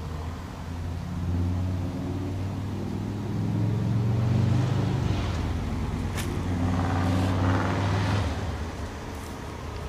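A motor vehicle's engine running with a steady low hum that swells in the middle and drops off about eight seconds in, with a sharp click about six seconds in.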